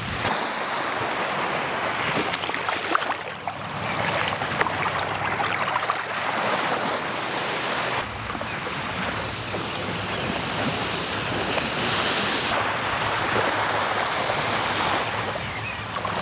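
Small waves washing up onto a sandy beach: a steady rush of surf, its sound changing about halfway through.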